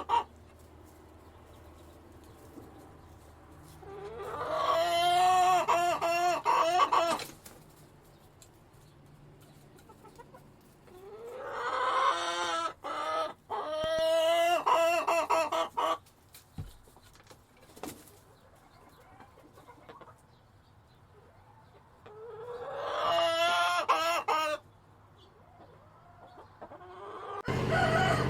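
Rooster crowing: three long, drawn-out crows several seconds apart, with quiet between them.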